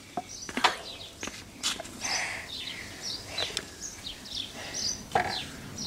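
Small birds chirping over and over, with a few sharp clicks and knocks from the plastic blender jug and cup being handled.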